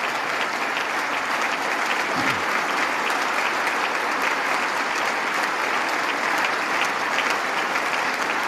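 Sustained applause from a large audience of lawmakers, a dense, steady clatter of many hands clapping together.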